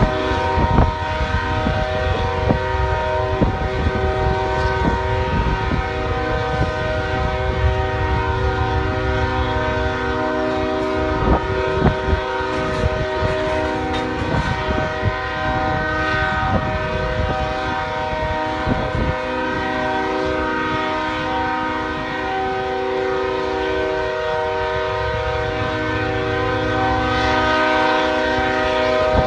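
Train horn blasting continuously, one unbroken chord of several steady tones, over a low rumble that fades about a third of the way in and returns near the end.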